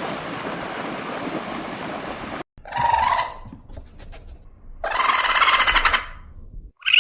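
A series of animal calls in separate short clips: a brief call about three seconds in, a longer call lasting about a second, and another brief call near the end, after a stretch of outdoor noise that cuts off abruptly.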